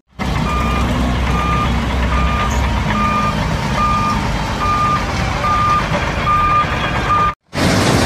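Dump truck tipping its load, the engine running with a reversing alarm beeping steadily, about once every 0.8 s. Near the end the sound cuts out briefly and a louder rushing noise begins.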